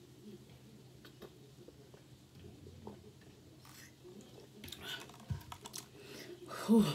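Quiet swallowing clicks of a person drinking ginger ale from a plastic bottle. Around five seconds in there is a rustle and a low thump as the bottle is lowered, and a short vocal sound follows near the end.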